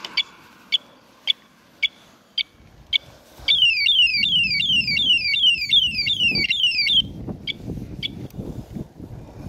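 Battery-powered electronic bicycle horn cycling through its tones. First comes a row of short high beeps, about two a second. Then a fast, repeating falling siren sweep runs for about three and a half seconds, followed by two more beeps.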